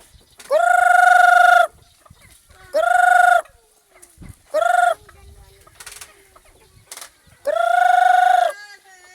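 Rooster crowing four times in loud, drawn-out calls: the first and last about a second long, the two in between shorter.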